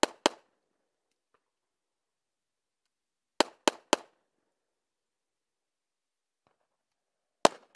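Pistol shots, each a sharp crack with a short tail: a pair at the start, a quick string of three about three and a half seconds in, and another pair at the end.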